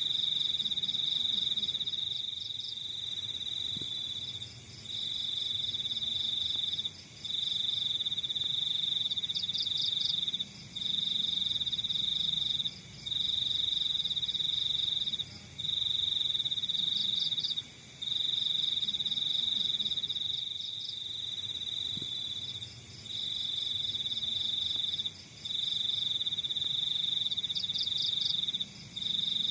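Crickets trilling: a steady, high-pitched trill that breaks off briefly about every two seconds and starts again, with a second, faster pulsing chirp a little higher in pitch.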